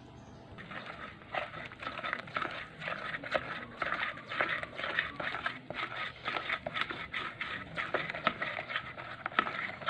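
Spatula stirring thick flour batter in a plastic bowl: quick wet squelching and scraping strokes. It starts under a second in.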